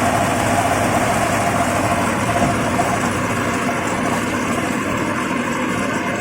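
Mini combine harvester running: steady engine and machinery noise, with a whine that fades about halfway through.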